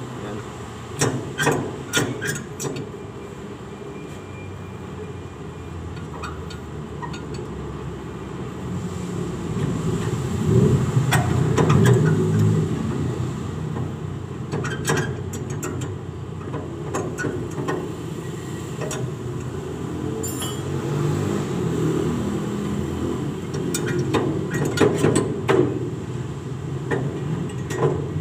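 Scattered metal clinks and knocks of hand tools and parts as an exhaust manifold is fitted to an engine's bare cylinder head. A steady low rumble runs underneath.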